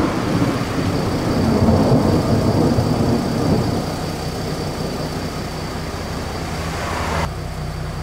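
Thunder rumbling on and slowly fading after a big clap. Near the end it breaks off abruptly into a quieter steady low hum.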